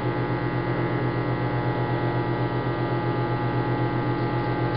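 Microwave oven running: a steady electrical hum with a fast, even pulsing in its low drone.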